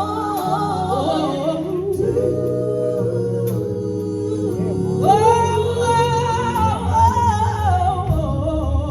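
Live gospel music: a female singer drawing out long, slow held notes over sustained instrumental accompaniment, a higher note coming in about five seconds in and held for about two seconds.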